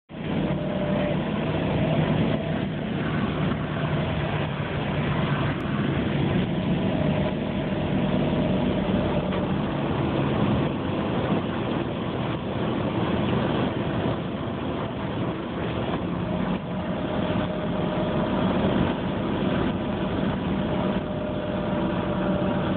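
Steady engine hum and road noise heard from inside a moving vehicle's cabin.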